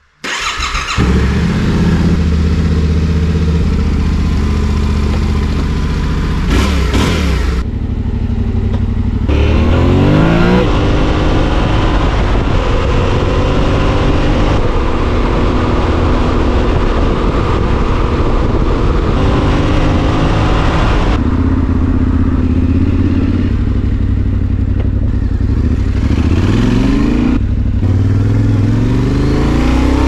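Yamaha Tenere 700's parallel-twin engine starting and running at idle to warm up before an oil change, with a few short throttle blips that rise and fall in pitch.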